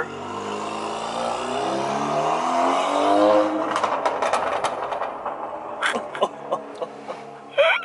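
Freshly tuned Alfa Romeo Giulia's 2.0-litre four-cylinder accelerating away, its pitch rising for about three seconds, then fading as it lifts off, with a run of short sharp cracks as it goes.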